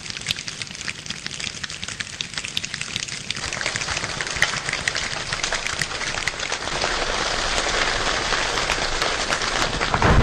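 A group of people imitating rain without water. Scattered sharp clicks like the first raindrops grow denser into a steady rain-like hiss, which gets louder over the last few seconds as the imitated shower builds.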